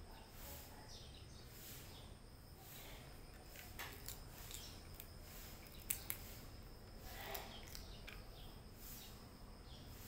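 A cat eating from a plastic plate: faint chewing, with a couple of sharp clicks about six seconds in. Behind it, faint high-pitched chirping repeats at an even pace, like insects.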